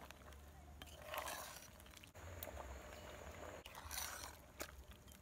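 A metal spoon stirring a pot of stew, with a few light clinks against the pot. The sounds are faint.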